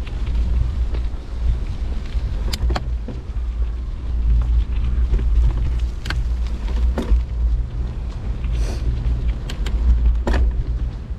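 Wind rumbling on the microphone while riding a bicycle, with scattered sharp clicks and rattles, about half a dozen of them.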